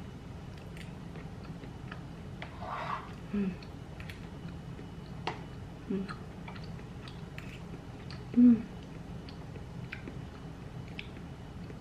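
A person eating cake with a metal fork: quiet chewing, small clicks of the fork against a plastic container, and a few brief low hums, the loudest about eight and a half seconds in.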